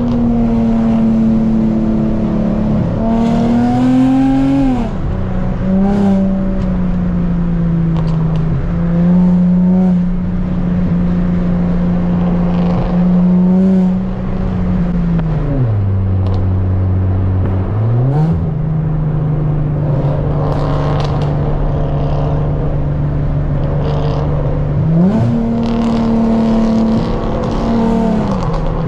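Infiniti G35 coupe's 3.5-litre VQ V6 running through a loud straight-piped aftermarket exhaust, heard from inside the cabin while driving. The revs hold mostly steady, climbing and falling several times, and drop to a low note for a couple of seconds about halfway through before pulling up again.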